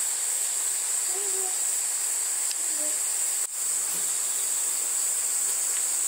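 Steady, high-pitched chorus of insects in summer woodland, a continuous shrill drone that dips out only for a moment about three and a half seconds in.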